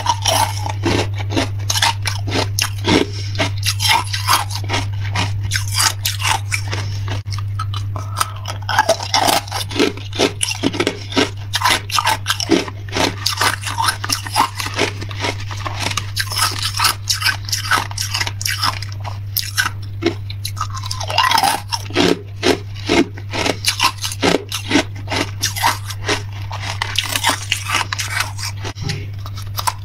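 Hard clear ice cubes being bitten and crunched between the teeth, close to the microphone: a dense run of sharp cracks and crunches with brief pauses, over a steady low electrical hum.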